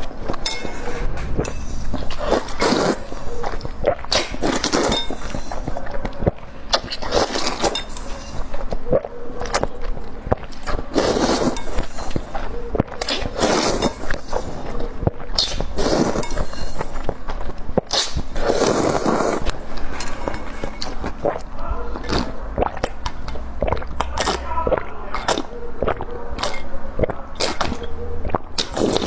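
Close-miked eating: repeated crunching bites and chewing, with many short sharp clicks in between.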